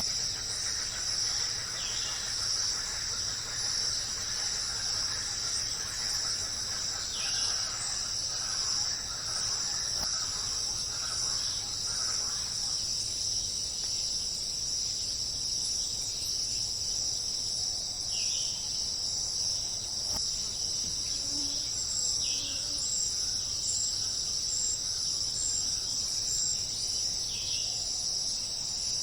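A steady, high-pitched insect chorus like crickets trilling without a break. Now and then, about five times, a short call falls in pitch.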